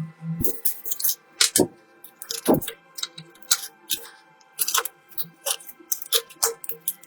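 Irregular sharp clicks and taps, a few a second, from hand work on a cracked iPad mini being taken apart and repaired, with steady background music under them.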